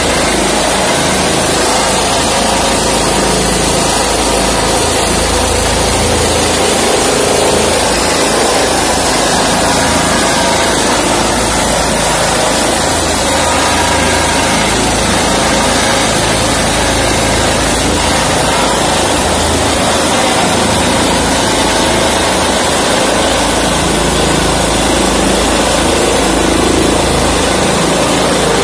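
Helicopter hovering close by: a loud, steady rush of turbine and rotor noise that does not let up.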